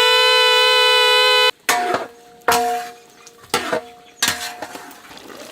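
A homemade whistle made from a hollow pumpkin leaf stalk being blown. It gives a loud, steady horn-like note that cuts off about a second and a half in, followed by a few shorter notes with sharp starts.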